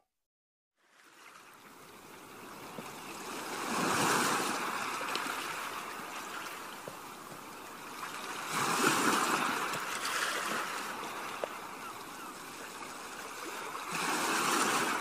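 Low surf washing up onto a flat sandy beach, with the sound of the water swelling and ebbing three times about five seconds apart as each wave comes in. The first second is silent.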